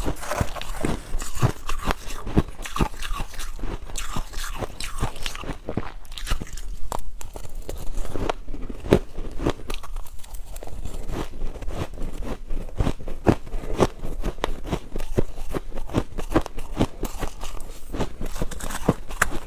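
Ice being bitten and chewed close to the microphone: a dense, irregular run of sharp crunches and cracks as the pieces break between the teeth.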